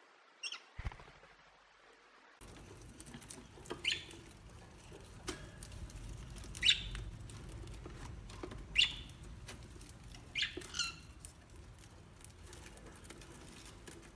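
Parrot giving about six short, shrill calls spaced a few seconds apart, with light clicking and tapping between them.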